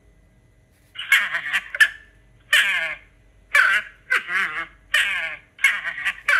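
An animal calling repeatedly: about six short, harsh pitched calls in quick succession, starting about a second in, with brief pauses between them.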